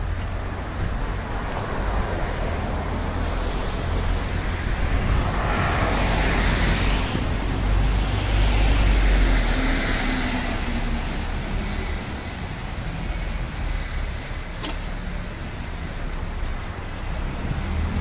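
City street traffic: cars driving past over a steady low rumble, with two louder passes swelling and fading about six and nine seconds in.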